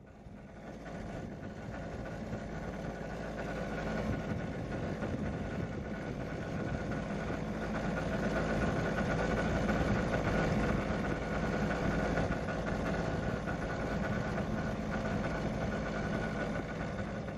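Steady mechanical hum like a motor running evenly, with a rushing wash over it; it fades in at the start and fades out near the end.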